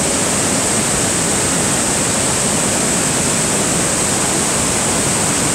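Steady rush of falling and flowing water from Niagara Falls and the river below it: an even, unbroken noise.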